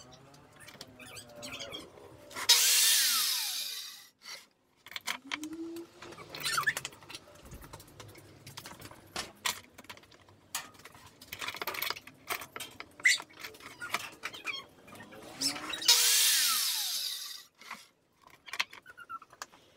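Bosch circular saw run twice in short bursts of about a second and a half, about 13 seconds apart, each a loud motor whine with cutting noise whose pitch falls away as the blade winds down. Between them come scattered clicks and knocks of the sled, fence and workpiece being handled.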